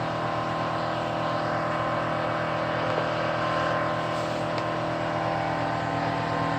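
REGEN-I BK-I300 BGA rework station running: a steady machine hum with a fast low flutter from its blower and fans.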